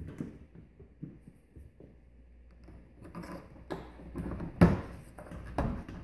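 Plastic central-vacuum hose and its cuff being handled and fitted into the inlet on the vacuum unit: rubbing and rattling with several knocks, the loudest about four and a half seconds in and another about a second later.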